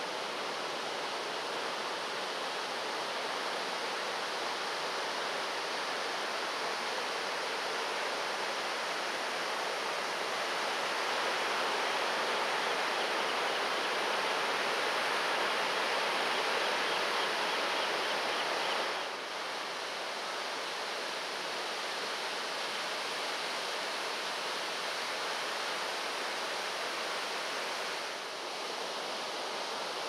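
Ocean surf breaking, a steady rushing wash of waves. It swells louder past the middle, then drops suddenly about two-thirds of the way in.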